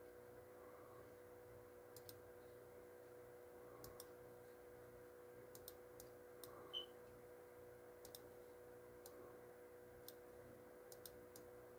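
Faint computer mouse clicks, single and double, scattered every second or two over a steady low electrical hum. About seven seconds in, a brief high blip stands out as the loudest sound.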